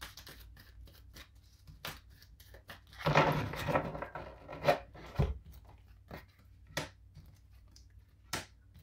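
A deck of reading cards being handled and laid down on a table: scattered light snaps and taps of cards, with a longer papery rustle of sliding or shuffling cards about three seconds in.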